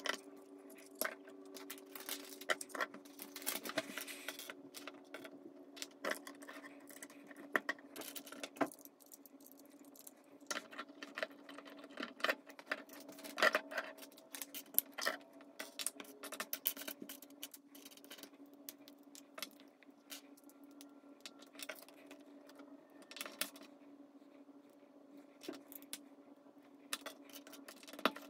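Plastic Lego bricks clicking and clattering in irregular bursts as pieces are picked from a loose pile and pressed together, over a steady low hum.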